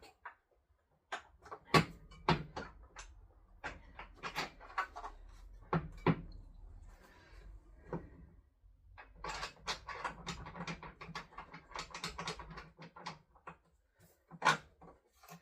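Irregular clicks and knocks of a motorcycle seat being pushed into place and its fixing bolts handled, with a denser spell of clattering about two-thirds of the way through.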